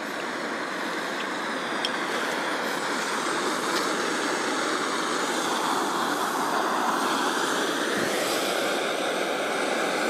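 Backpacking gas canister stove burning steadily under a pot of water being heated, an even rushing hiss of the burner that swells slightly partway through.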